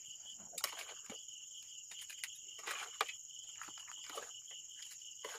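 Crickets chirring steadily in a high, even band, over scattered light clicks and knocks of cooked crab shells and the pan as the crabs are taken out by hand.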